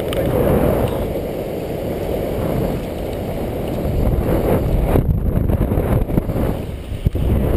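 Wind buffeting the microphone of a camera mounted on a paraglider in flight: a steady, fluttering rush of airflow.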